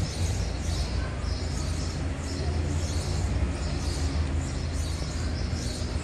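Street ambience: a steady low rumble, with small birds chirping over it about twice a second.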